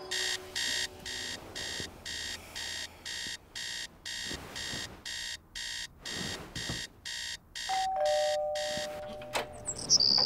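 Electronic alarm clock beeping in rapid, evenly spaced high beeps, about two and a half a second, stopping about nine seconds in. Just before it stops, a two-note chime sounds, a higher note then a lower one.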